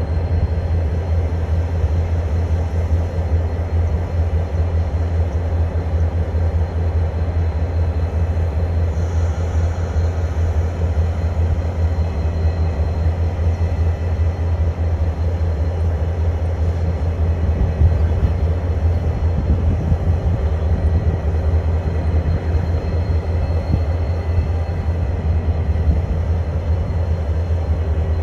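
Diesel locomotive engine running steadily, a low, even rumble that does not change.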